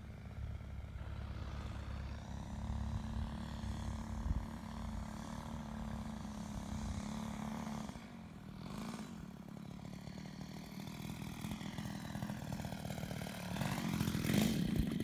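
Engine of a quarter-scale radio-controlled Sopwith Pup biplane droning steadily in flight, dipping in level and pitch just past halfway as the plane passes, then growing louder as it comes in low to land near the end.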